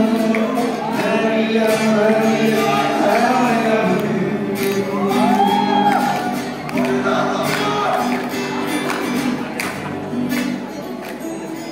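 A man singing into a microphone to acoustic guitar accompaniment, a live song over a PA system.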